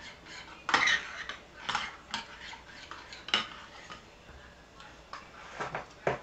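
Metal spoon stirring a creamy dressing in a bowl, scraping and clinking against the bowl in a few separate strokes, the loudest about a second in.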